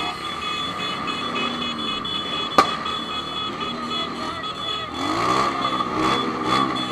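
Honda CB1000 inline-four engine running, its revs rising and falling and climbing louder near the end, over a steady high-pitched whine. A single sharp click comes a little past two and a half seconds in.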